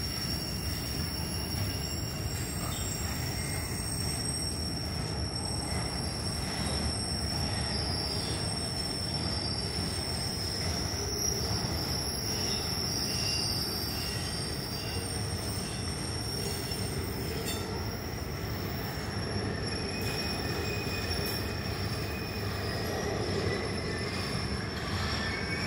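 Norfolk Southern rail-train flatcars loaded with strings of welded rail rolling past: a steady rumble of steel wheels on the rails with a continuous high-pitched wheel squeal.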